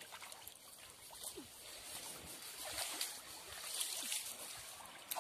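Light, intermittent water splashing and trickling as a water buffalo is washed by hand in a shallow muddy stream.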